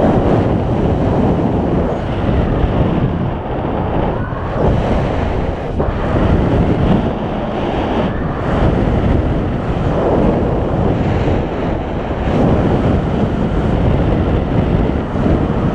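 Wind buffeting the microphone of a camera carried on a paraglider in flight. It is a loud, steady rush that swells and eases every few seconds.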